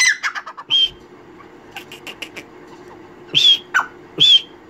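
Caged grey francolin (Dakhni teetar) calling at night: loud, short, shrill call notes about a second apart, with quick runs of sharp ticking notes between them.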